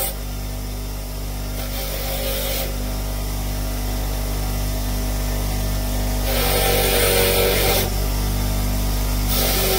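Bench grinder running with a steady hum, and three bouts of scraping hiss, each a second or so long, as the spark tester's small metal tips are held against the spinning wheel to clean and shine them.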